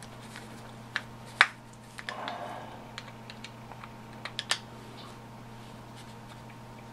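A small pointed hand tool picking and prying at a small metal part of a 12 V compressor's piston: scattered light clicks, the sharpest about a second and a half in, with a short scrape around two seconds. A steady low hum runs underneath.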